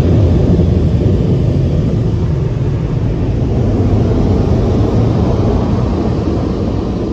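Tunnel car wash dryer blowers, a loud steady rush of air heard from inside the car, easing slightly near the end.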